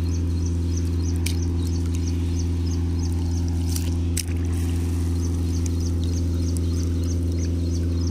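A steady, unchanging low motor hum, one pitch with many overtones, with a faint high chirp repeating several times a second over it.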